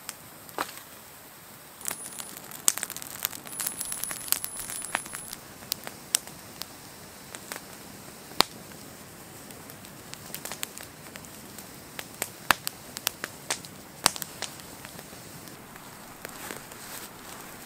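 Wood campfire crackling: irregular sharp pops and snaps over a steady low hiss, busiest a couple of seconds in.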